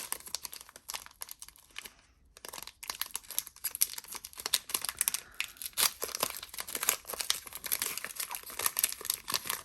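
Foil wrapper of a Pokémon trading-card booster pack crinkling as it is handled and torn open. The crackling is dense and irregular, with a short pause about two seconds in.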